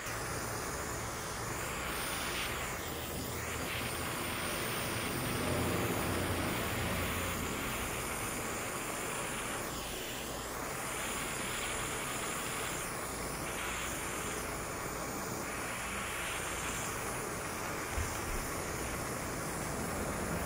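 Handheld butane mini torch burning with a steady hissing rush as its flame melts a polyethylene welding rod onto a cracked plastic tank. The tone shifts slightly as the torch moves, and there is a single faint click near the end.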